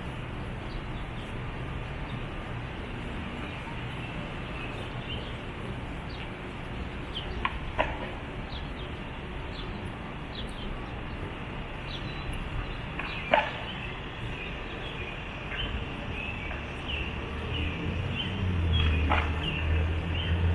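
Outdoor ambience with a steady rush of background noise and small birds chirping now and then. A few sharp clicks stand out, and a low engine hum builds near the end.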